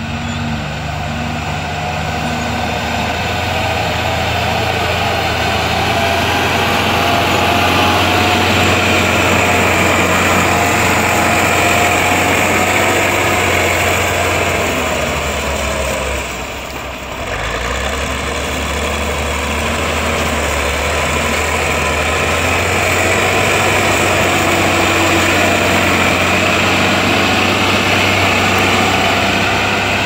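Diesel engine of a Caterpillar motor grader running steadily under load as its blade pushes loose dark gravel along the roadbed. The sound drops briefly a little past halfway, then resumes.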